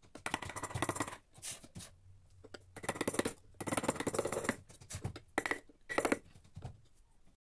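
A wood-carving gouge pushed by hand through teak, making a series of short cutting and scraping strokes. Each stroke is a quick run of tiny ticks as the edge shears the wood fibres, with brief gaps between strokes.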